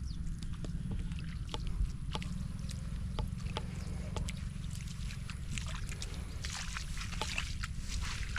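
Shallow floodwater splashing and sloshing, with many small scattered clicks and drips and a few fuller splashes in the second half, over a steady low rumble.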